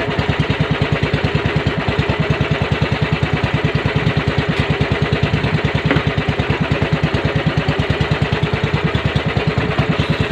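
Small boat engine of a bangka fishing boat running steadily, with an even, rapid chugging pulse.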